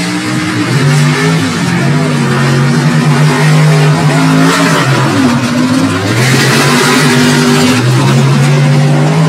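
Mud bog race trucks running at full throttle side by side down a mud track, a loud engine note that holds steady and dips briefly in pitch a few times, with a rushing hiss of thrown mud and dirt over it that swells near the end.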